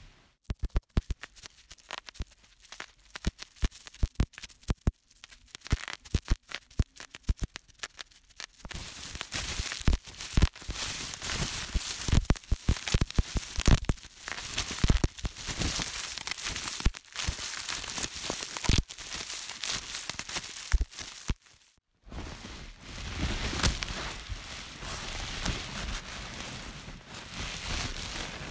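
Plastic bubble wrap being squeezed and popped. Separate sharp pops come first, then dense crackling pops mixed with the crinkle of the plastic. After a brief gap about three-quarters of the way through, the crinkling carries on steadily.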